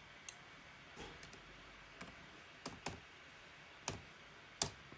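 Scattered single clicks from operating a computer mouse and keyboard, about eight, quiet and irregularly spaced.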